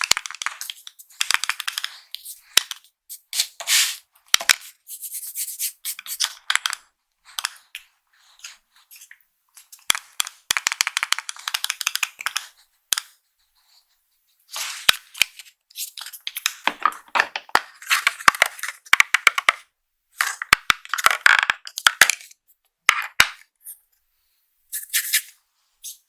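Makeup packaging being handled and opened, heard as irregular bursts of crinkling and rustling with short pauses between them and a few sharp clicks.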